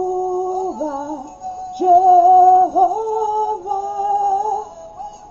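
A woman singing a slow worship melody in long held notes that slide from one pitch to the next, loudest about two seconds in and fading near the end.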